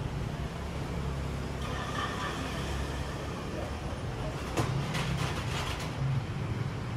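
Town street ambience: a steady low rumble of road traffic, with a few sharp clicks about five seconds in.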